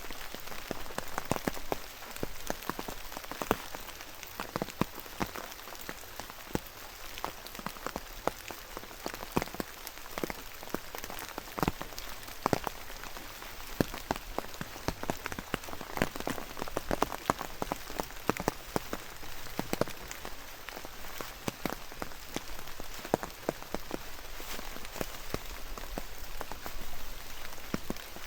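Steady rain falling, with many loud single drops striking at irregular moments over the even hiss.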